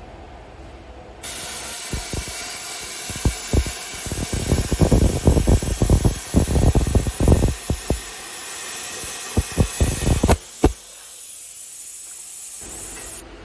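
Plasma cutter with an AG60 torch cutting 5 mm steel plate. The arc starts with a sudden loud hiss about a second in and crackles and pops through the cut, loudest in the middle. It stops suddenly about ten seconds in, leaving a softer hiss.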